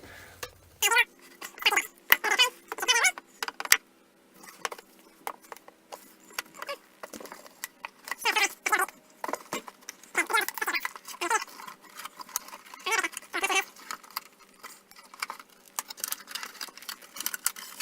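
Heat-softened sealant and plastic of a Mazda 3 headlight squeaking and creaking in many short bursts as the lens is pried away from the housing. A faint steady hum runs underneath.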